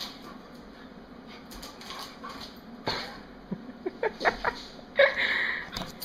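A dog making a few short, high whining cries about four seconds in, among a few sharp knocks.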